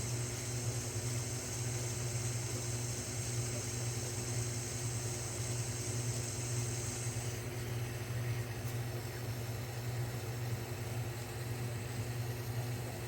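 1938 South Bend 9 metal lathe running steadily under power while turning a 416 stainless steel bar, with a low motor hum and a steady tone. A high hiss over it drops away about seven seconds in.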